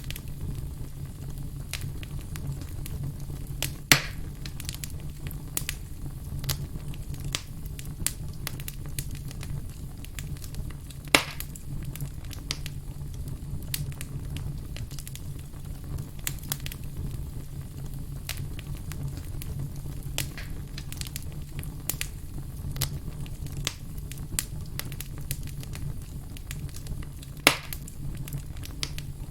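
Wood campfire crackling and popping steadily over a low, even rumble, with three sharper, louder pops: about four seconds in, about eleven seconds in, and near the end.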